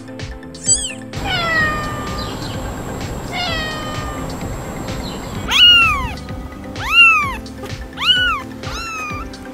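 Cats meowing: a few drawn-out falling meows, then from about halfway four loud, high-pitched kitten mews about a second apart.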